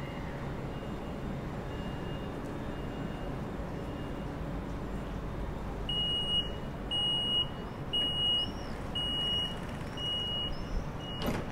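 Door warning signal of a Stadler KISS ESh2 'Eurasia' double-deck electric train standing at the platform: a short high beep about once a second, faint at first, then loud for about six beeps from about six seconds in. A steady low hum runs underneath, and a sharp click comes just before the end.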